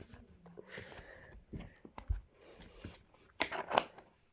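Clear slime being handled and squeezed: faint sticky clicks and small squelches, with a short cluster of louder squelching pops about three and a half seconds in.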